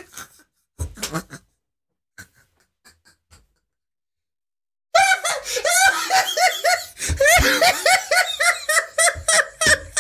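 A man laughing hard: a couple of short bursts in the first second or so, a pause, then from about five seconds in a loud, unbroken run of rapid "ha-ha" laughs, about three or four a second.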